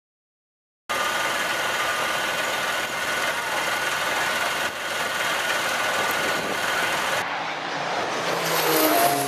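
Fire engine's motor running steadily, heard as a loud hissing hum with a few steady tones. It starts abruptly about a second in. The sound changes about seven seconds in, where gliding pitched sounds come in near the end.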